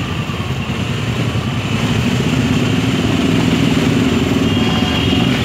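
A group of motorcycles running together and pulling away, the engine noise growing louder about two seconds in as they set off.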